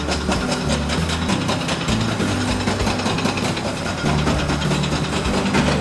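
Background music with a low bass line changing notes about every second over a steady beat.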